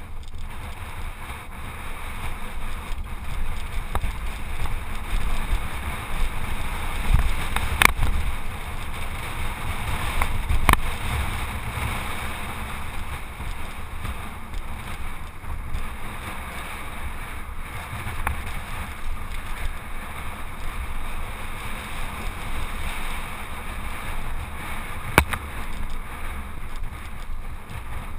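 Wind rushing over an action camera's microphone as a mountain bike rolls down a bumpy dirt and grass downhill track, with a steady rumble from the ground and a few sharp knocks from the bike, the loudest about eight and eleven seconds in and one more near the end.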